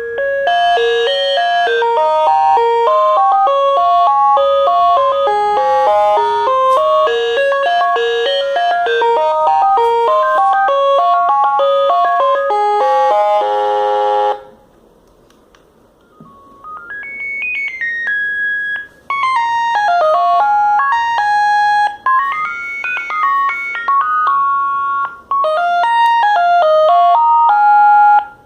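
Sagem MW 3022 mobile phone playing two of its built-in ringtones through its own speaker: a fast electronic melody of short notes that stops about halfway, then, after a pause of about two seconds, a second melody with notes stepping up and down.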